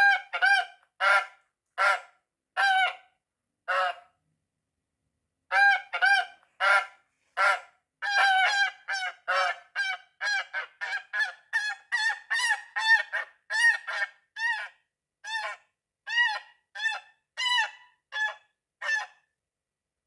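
Goose honking: a series of short, loud honks, a pause about four seconds in, then a quicker run of honks that stops near the end.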